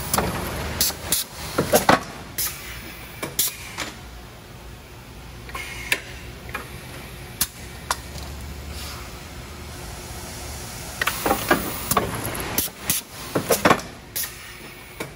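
Industrial plant noise: a steady low hum with irregular sharp clanks and knocks, bunched near the start and again near the end, and a few short hisses.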